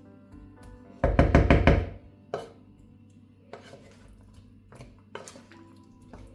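A quick run of about half a dozen knife chops on a cutting board about a second in, then a few scattered light knocks, over background music.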